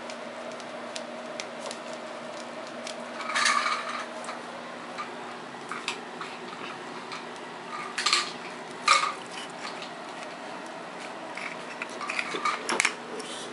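A few short clatters and clinks of a hard object knocked about on a tiled floor by a playing kitten, about 3.5 s, 8 s and 9 s in and a quick cluster near the end, with faint ticks between and a steady low hum.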